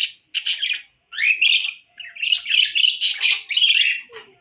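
Small pet parrots, budgies with a lovebird and a cockatiel, chirping and chattering in quick, overlapping calls, with a rising chirp about a second in.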